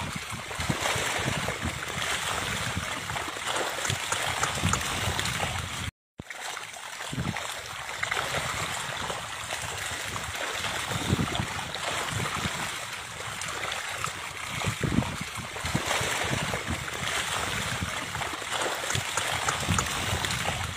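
Many stranded fish flapping and splashing in very shallow water: a dense, continuous patter of small splashes and slaps. The sound cuts out completely for a moment about six seconds in.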